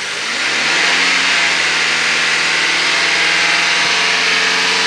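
2013 Honda Accord's 2.4-litre four-cylinder engine revving up about half a second in, then held at a steady raised speed. The throttle is held open to check for misfire after the too-tight valve on cylinder 4 was adjusted.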